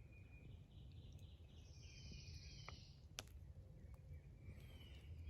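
Near silence with faint bird calls, and two soft clicks about three seconds in.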